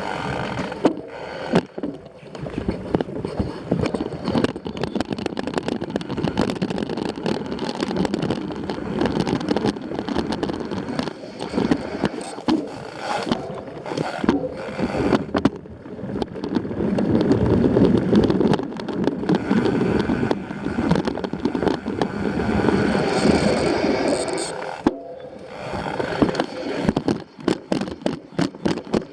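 Mountain bike rolling fast over a rough dirt trail: tyres crunching and scraping on the ground, with the bike clattering and knocking over bumps.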